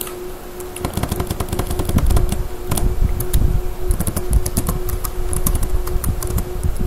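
Computer keyboard being typed on, a run of quick key clicks starting about a second in.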